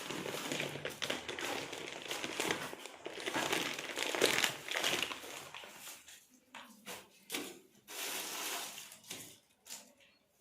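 Plastic grocery bags and packets crinkling and rustling as groceries are unpacked from them, dense for the first few seconds, then in shorter handlings with pauses between.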